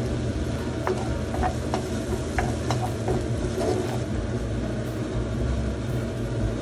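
Halved cherry tomatoes and tomato sauce sizzling in a frying pan as they are stirred with a spatula, with a few light clicks of the spatula against the pan in the first half, over a steady low hum.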